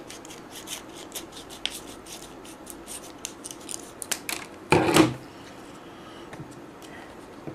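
Scissors cutting across the top of a foil MRE retort pouch in a series of short, crisp snips. About five seconds in there is one louder rustle, then quieter handling of the foil pouch.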